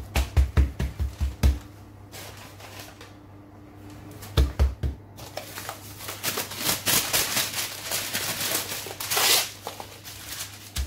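Hands patting a disc of sablé dough flat on baking parchment: a quick run of soft thumps in the first second and a half, and two more about four and a half seconds in. Then parchment paper rustling and crinkling as a sheet is laid over the dough.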